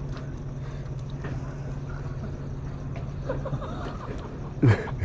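An engine idling with a steady low hum that stops about three and a half seconds in, followed by faint voices and a short loud call near the end.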